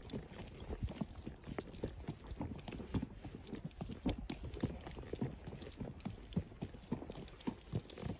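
Horse hooves clip-clopping on a packed dirt road as the horse is ridden: several uneven hoofbeats a second.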